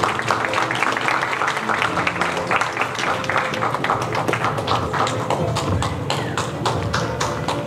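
A small group of people clapping, the separate hand claps distinct and irregular.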